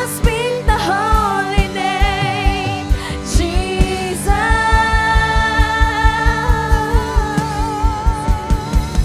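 Worship song: a solo singer with a wavering vibrato holds a long note over a steady drum beat.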